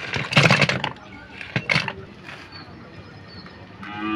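Dry wood chips and kindling clattering as they are tipped from a plastic basket into a clay stove pit, loudest in the first second with a few more knocks near two seconds in. A cow starts mooing at the very end.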